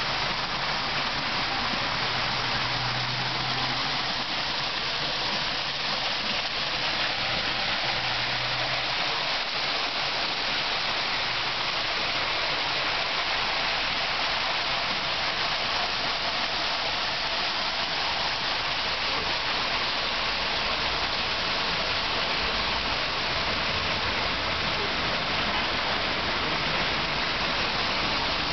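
Artificial waterfall: water falling steadily into its basin in an even, continuous splash, with a low rumble underneath in the later part.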